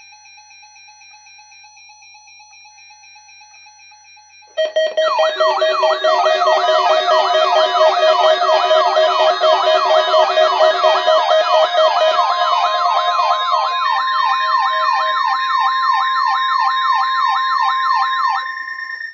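Faint electronic keyboard-like tones, then about four and a half seconds in, a loud layered mix of electronic siren wails breaks in. The wails sweep up and down about twice a second over steady alarm tones, then cut off suddenly near the end.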